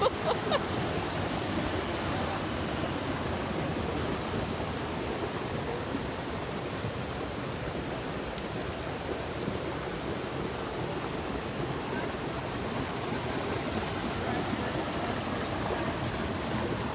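A shallow river rushing over rocks and small cascades: a steady, even rush of water.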